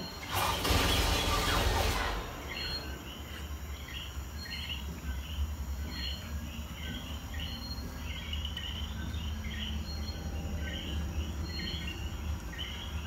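Steady chorus of short, high chirping calls, several a second, over a low steady hum. A loud burst of rushing noise fills the first couple of seconds.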